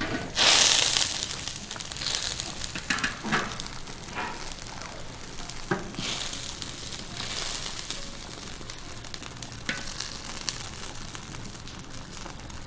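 Fish broth with pickled cabbage bubbling and sizzling steadily in a large iron wok as it is stirred with chopsticks. There is a louder burst of sizzling just under a second in, and a few short clicks along the way.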